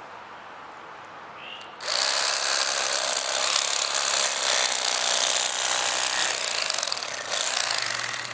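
Battery-powered Bubba Blade electric fillet knife switching on about two seconds in and running steadily as it cuts a fish fillet, stopping at the very end.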